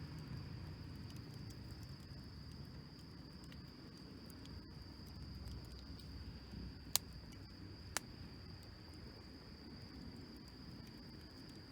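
Insects chirring in a steady high trill over a faint low rush, with two sharp clicks about a second apart near the middle.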